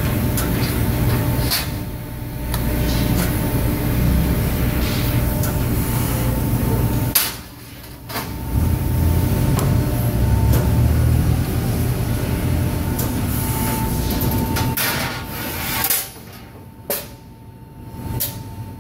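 1999 Trumpf V-130 CNC press brake in use: a steady low machine drone with a thin whine over it, and metal clanks as steel sheet is bent and handled. The sharpest knocks come about seven seconds in and near the end, and the drone drops away briefly twice.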